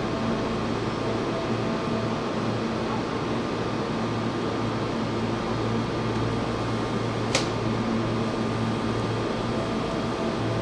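A train's air-conditioning and electrical equipment humming steadily with several constant tones. A single sharp click about seven seconds in.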